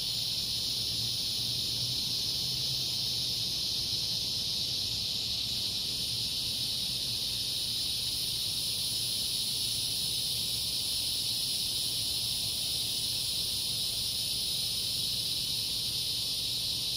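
Steady, high-pitched chorus of insects singing, with no break or change, and a faint low hum underneath.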